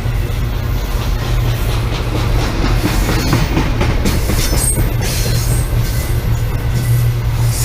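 BNSF double-stack intermodal freight train rolling past at track speed, its car wheels clacking steadily over the rail, with a brief high wheel squeal about halfway through.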